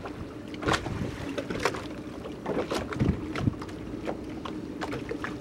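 Irregular knocks and thuds of a man moving about in a small composite dinghy tied alongside a boat, with water slapping at the hulls and a steady low hum underneath.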